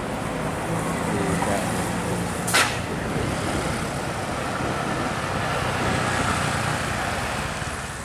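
Diesel tour bus engine running as the bus passes and pulls away round a bend, over road and traffic noise, with a motorcycle following. A single sharp click about two and a half seconds in.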